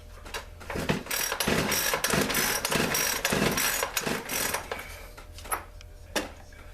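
Recoil pull-starter of a 50 cc Poulan Pro two-stroke chainsaw yanked five or six times in quick succession, each pull a short ratcheting rasp, from about a second in until about four and a half seconds; the engine does not fire. The owner finds little compression on these pulls.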